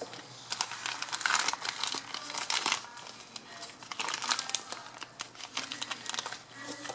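Plastic mailing bag crinkling and tearing as it is pulled open by hand, a run of crackles that is loudest over the first few seconds and flares again about four seconds in.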